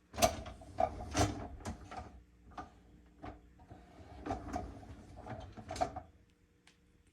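Dishes clattering and knocking against the dishwasher racks as the dishwasher is loaded, with rattling of the racks between the knocks, stopping about six seconds in.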